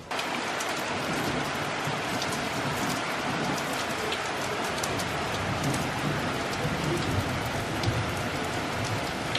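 Heavy rain falling steadily: an even hiss, with scattered small ticks of drops striking close by.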